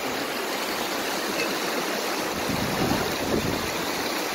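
Steady rush of flowing river water, with wind buffeting the microphone as a low rumble from a little past halfway.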